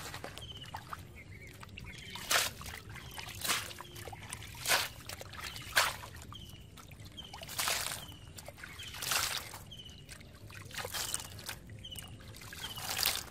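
Wet mud and water sloshing and squelching in about eight separate bursts as hands and live eels move in wet mud and a woven bamboo basket. A short, high, falling chirp repeats about once a second in the background.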